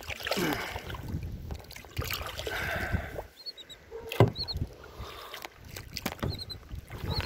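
Water sloshing and splashing against a kayak hull, with one sharp knock a little after four seconds in.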